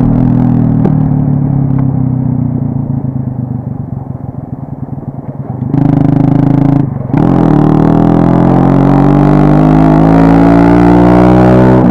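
Small Modenas motorcycle's single-cylinder engine through its exhaust, coasting off the throttle with the note fading for several seconds. About six seconds in it is opened up again. After a brief dip in the note for a gear change, the engine's pitch climbs steadily as the bike accelerates.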